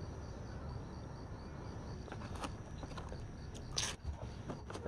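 Quiet night ambience with faint crickets chirping in an even, repeating pattern, a few small clicks, and one short breathy hiss about four seconds in.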